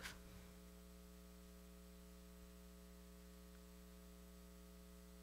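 Near silence with a steady low electrical mains hum.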